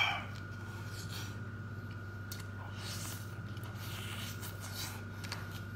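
Soft clicks, scrapes and rustles of a cooked brown crab's shell being pulled apart by hand, with a few faint slurps from sucking the fingers. A steady electrical hum runs underneath.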